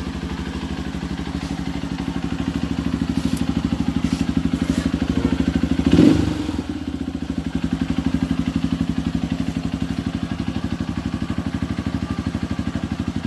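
Honda CRF150L's single-cylinder four-stroke engine idling through an aftermarket racing exhaust, with an even, rapid put-put. It grows louder over the first few seconds, gives a brief, sharp louder burst about six seconds in, then settles back to a steady idle.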